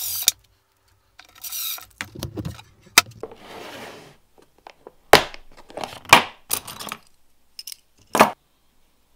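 A clear plastic organiser box handled on a wooden workbench: slid across the bench, its snap clasp clicking open, and loose steel draw latches clinking and rattling inside, in a few separate clatters.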